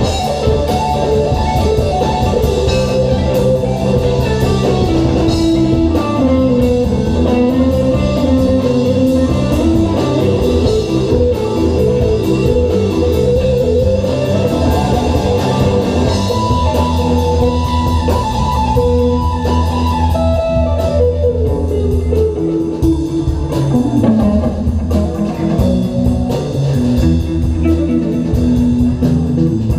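Live rock band playing an instrumental passage: electric guitar carrying a lead line with slow bending, gliding notes over drum kit and bass guitar.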